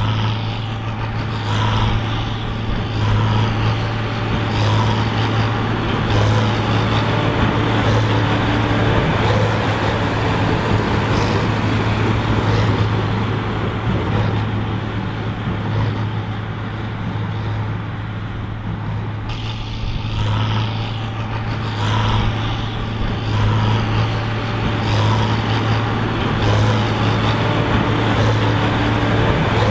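John Deere 4955 tractor's six-cylinder diesel running steadily under load, driving a Krone BigPack big square baler, with a regular beat from the baler about every second or so.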